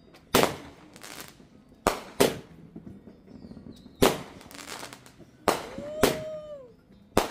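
Aerial fireworks shells bursting overhead: about eight sharp bangs at irregular intervals, some in quick pairs, each with a short echoing tail.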